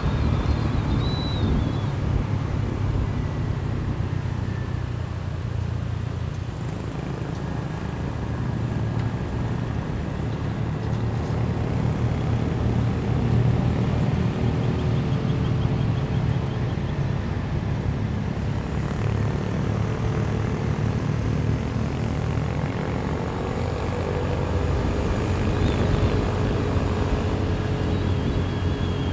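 Motorcycle engine running at a steady low drone while riding, with wind rushing over the microphone. The engine eases off slightly about six seconds in and picks up again.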